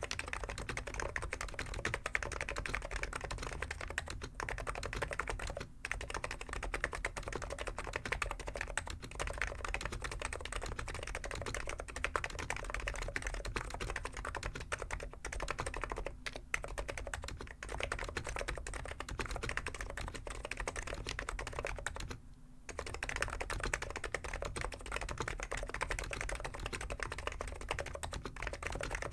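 Continuous fast typing on a Hansung GK893B keyboard with stock 50 g electro-capacitive (Topre-style) switches. The clatter breaks only for a few brief moments, the longest a half-second pause about three-quarters of the way in.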